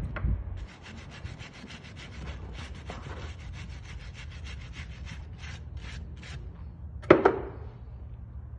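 Wooden stick scraping back and forth over a horse's shod hoof, spreading and smoothing soft hoof cushion pad material across the sole. The strokes are quick and even at first and slow toward the end, stopping about six seconds in. A single sharp knock follows about a second later.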